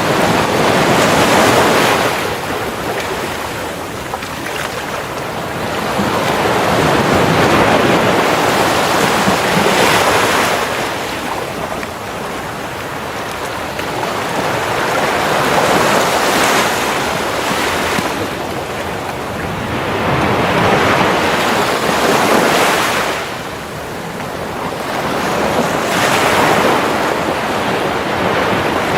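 Sea waves breaking on a beach, a loud rushing surf that swells and ebbs in slow surges about every five to six seconds.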